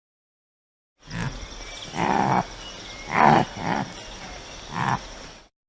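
Calls of a large animal: about five short, loud calls a second or so apart over a faint steady background. They begin about a second in and cut off suddenly near the end.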